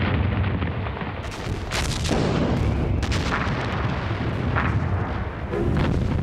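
Artillery guns firing and shells exploding: several sharp bangs over a continuous low rumble.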